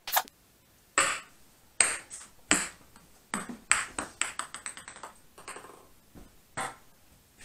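Ping-pong ball bouncing on a hardwood floor: a few hard bounces, then a run of ever quicker, fainter taps as it settles, and a couple of stray taps near the end.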